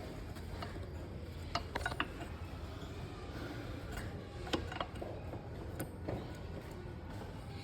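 Scattered light metallic clicks and clinks of parts and tools being handled during reassembly of a motorcycle's rear wheel and brake, over a low steady hum.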